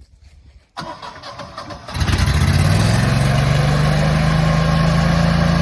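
Generac home standby generator's engine cranking and catching, then running steadily and loudly, its pitch rising a little as it comes up to speed. It starts automatically once the utility power is shut off.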